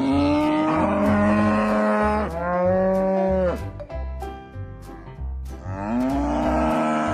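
Cattle mooing: long, drawn-out calls whose pitch rises and then falls. Two calls overlap at first, a third follows straight after, and after a pause another comes near the end.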